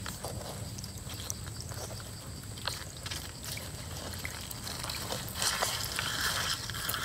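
Thin stream of water trickling down a rock-and-soil channel, with scattered small clicks and scrapes as tortoises clamber up through it. The noise grows louder for the last second and a half.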